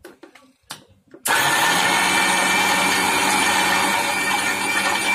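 Electric mixer grinder running at speed, its stainless steel jar grinding coriander, peanuts, chillies and a little water into a chutney paste, with a steady motor noise and a faint high whine. It starts abruptly about a second in, after a few light knocks as the jar is set in place.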